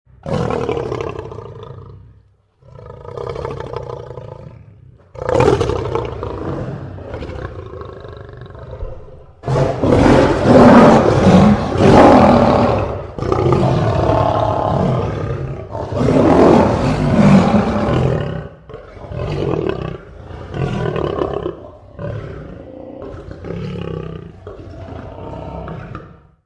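African lion roaring in a long bout: several drawn-out roars that grow loudest about halfway through, then trail off in a run of shorter, weaker calls about one a second.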